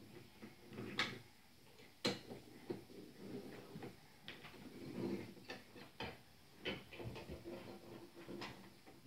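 Wooden toy train cars and pieces clacking against wooden track as a child handles them: irregular light clicks and knocks, the sharpest two about one and two seconds in.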